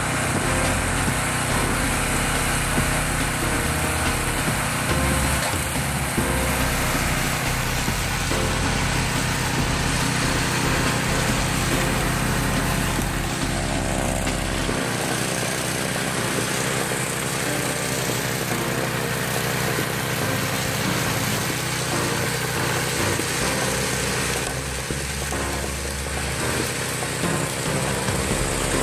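Tracked two-stage snow thrower's small single-cylinder petrol engine running steadily under load as the auger and impeller chew into snow and throw it out of the chute.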